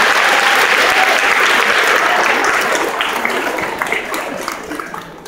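Audience applauding, then dying away over the last two seconds into a few scattered claps.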